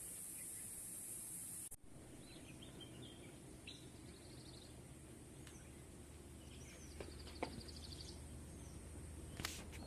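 Faint outdoor ambience with small birds chirping and giving short trills now and then. A steady high hiss stops abruptly a little under two seconds in, and a few sharp clicks come near the end.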